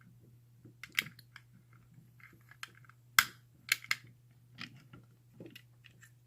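Small metallic clicks and taps of a lock pick and screwdriver working inside a Squire four-lever brass padlock as it is being picked. The clicks come irregularly, a few sharper ones standing out, the loudest about three seconds in.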